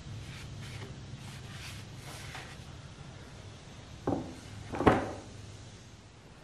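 A damp shop towel wiping water over a hardwood butcher-block cutting board to raise the grain, soft rubbing strokes, then two wooden knocks about four and five seconds in as the board is handled on the wooden plank. A low steady hum runs underneath.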